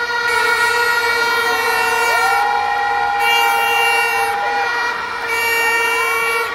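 Horns blowing in the stadium crowd: one steady, held note with a second horn sliding up in pitch about two seconds in and again near the end.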